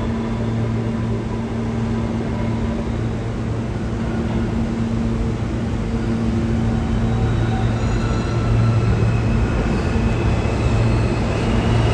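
NYC Subway R160B train with Alstom propulsion pulling out and running away into the tunnel: a steady low motor hum over wheel and track rumble, with faint higher tones joining in the second half.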